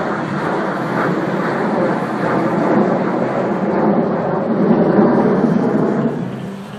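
Jet roar of two CF-18 Hornet fighters passing overhead, swelling to its loudest about five seconds in, then dropping away abruptly just before the end.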